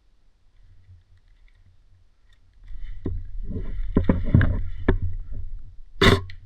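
Rustling and bumping handling noise on the microphone, starting a few seconds in, with a single sharp crack near the end.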